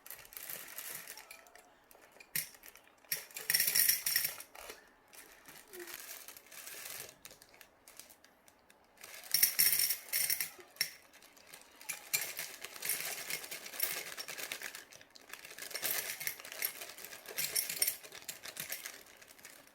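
Toy gumball machine clicking and rattling in repeated bursts, small hard candies tumbling and clattering inside as it is worked.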